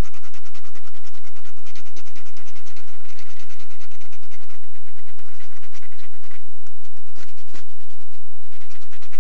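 Lottery scratch-off tickets being scratched in rapid back-and-forth strokes, scraping off the coating, over a steady low hum.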